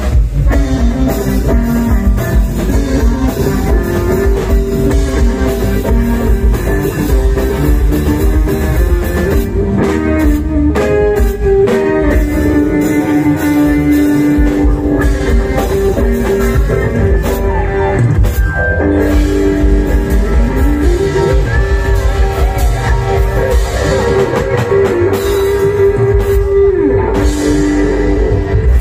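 Loud music played over a large carnival sound system: heavy, steady bass and drums under a sliding, guitar-like melodic lead.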